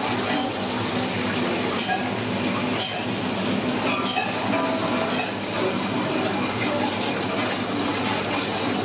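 A long iron ladle stirs water with whole spices in a large aluminium cooking pot: the water sloshes, and the ladle clinks against the pot a few times about two to five seconds in. Under it runs a steady kitchen rumble.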